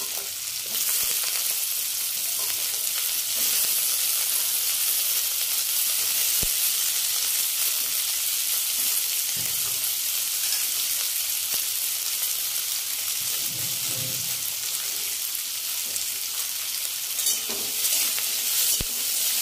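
Diced radish and potato frying in hot mustard oil in a wok, with a steady sizzling hiss. Near the end a spatula scrapes and clicks against the pan as the pieces are stirred.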